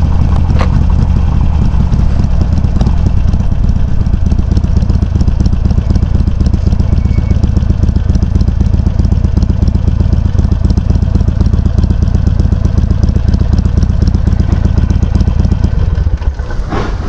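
Harley-Davidson Sportster 883's air-cooled V-twin running loud and steady through Customer slip-on exhaust tips with the baffles set low, its exhaust pulses even. It eases off about sixteen seconds in.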